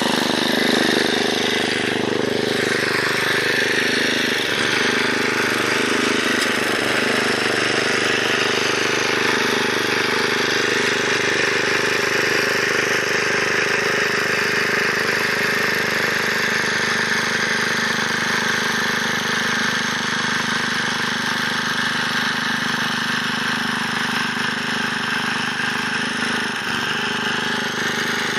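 Engine of a Luch walk-behind tractor running steadily as it tills soil with its rotary tines.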